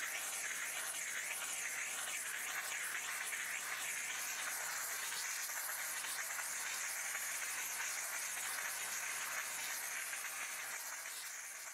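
Steady hiss of steam from a Desiderio Plus steam cleaner's nozzle as its round brush head scrubs greasy grill surfaces, with a faint machine hum underneath; it fades away near the end.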